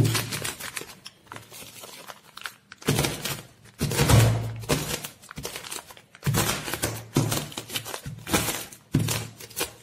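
Wooden rolling pin crushing sesame brittle inside a plastic bag: crackling and crunching with dull knocks, in several bursts of strokes as the brittle is broken into crumbs.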